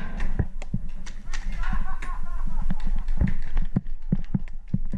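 Paintball markers firing: an irregular string of sharp pops, several a second.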